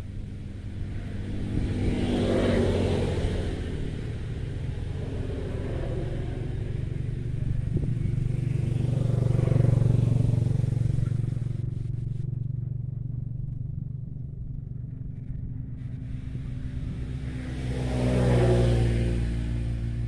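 Motor vehicle engines passing by, swelling and fading three times over a steady low rumble.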